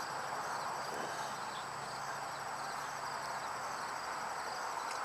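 Steady outdoor background: an even hiss with faint, rapid high-pitched chirping repeating throughout, and a faint low hum that fades out in the first half.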